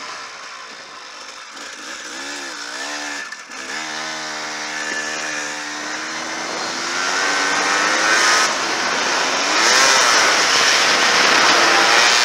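Enduro dirt bike engine under hard riding, heard from the rider's helmet: the revs dip and rise about two seconds in, then climb steadily as the bike accelerates, over heavy wind and trail noise that grows louder in the second half.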